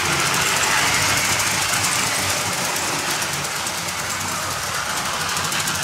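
LEGO electric trains running on plastic track: a steady motor whir with fast, even clicking from the wheels.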